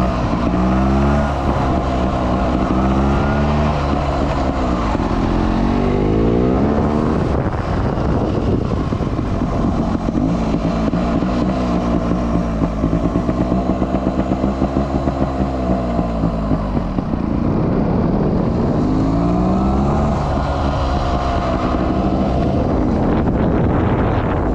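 Sherco trials motorcycle engine under way, the throttle opened and eased off several times so its pitch rises and falls.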